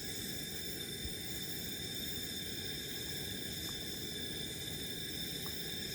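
Steady hiss of a portable gas camp-stove burner running under a pot of soup, with a couple of faint small ticks.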